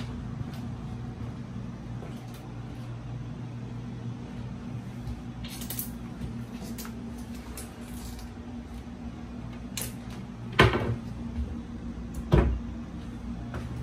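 Two sharp knocks about two seconds apart, over a steady low hum, with a few faint clicks before them.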